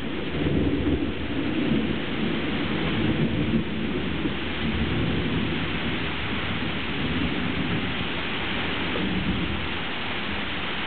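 Steady rain falling during a thunderstorm, under a low rumble of thunder that is strongest in the first few seconds and then fades.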